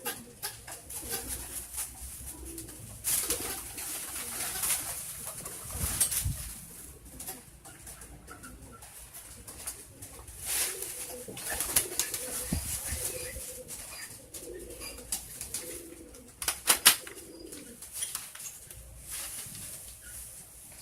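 Domestic pigeons cooing over and over, with wing flaps and sharp clicks now and then.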